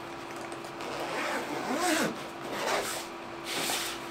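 Zipper on a fabric-covered drone carrying case being pulled open around the case in several sweeping strokes.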